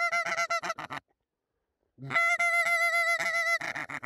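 Hand-blown goose call sounded in two quick runs of loud honks, each opening with a short low note that breaks upward into rapid clipped honks. The hunter is calling to passing geese to bring them in to the decoys.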